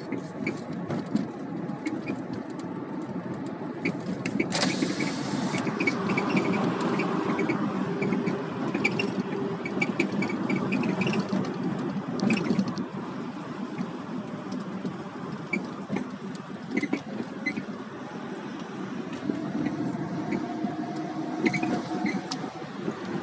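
Lada Granta's front right suspension squeaking in short, irregular chirps while driving, over steady road and engine noise in the cabin. The owner suspects the spring or the strut top mount, and the squeak began after a wheel alignment.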